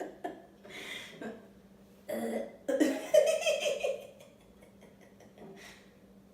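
People laughing in bursts, with a short throaty sound about two seconds in.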